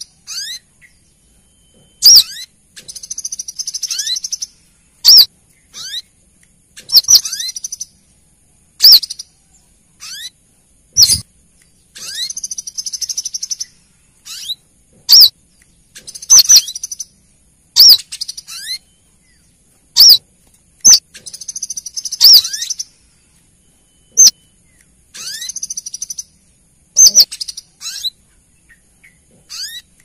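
Female brown-throated sunbird calls played as a lure to draw males: sharp, high notes sweeping downward, one every second or two, alternating with short bursts of high twittering.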